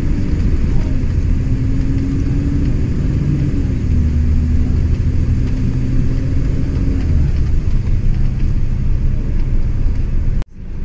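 Bus engine and road rumble heard from inside the moving bus: a steady drone whose engine note drops in small steps a few times. The sound cuts out abruptly just before the end.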